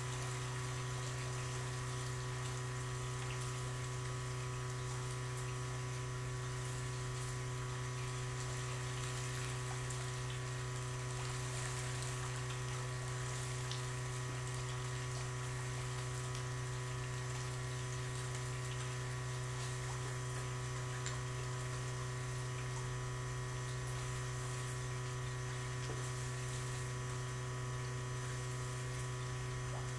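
A steady low electric hum with several fainter steady tones above it, over a constant wash of moving water.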